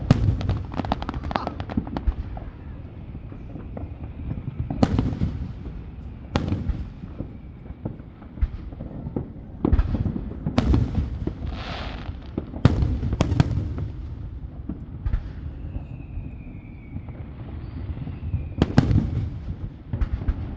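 Fireworks display: about eight sharp bangs at irregular intervals, each followed by a low rumbling echo, with a brief crackling hiss a little past halfway.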